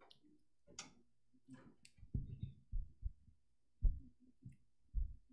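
Handling noise on a microphone and podium: a few light clicks in the first two seconds, then a run of irregular low thumps and knocks.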